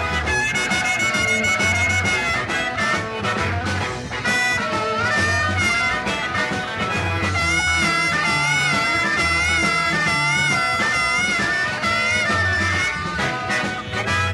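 Live blues band with electric guitar and a horn section playing: sustained lead notes with a wavering vibrato ride over a pulsing bass line and drums.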